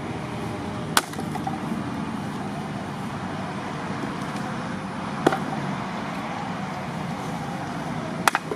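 An axe striking hardwood logs of lacquer tree: single sharp blows about a second in and around five seconds in, then two quick blows near the end, over a steady background hum.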